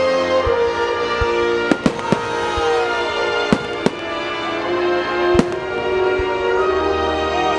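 Fireworks going off, about six sharp bangs in three small clusters, over music with long held tones.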